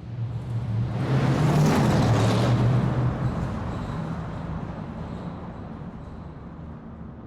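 Muscle car engine running loud, surging to its loudest about a second in and then slowly dying away, echoing as in a large room.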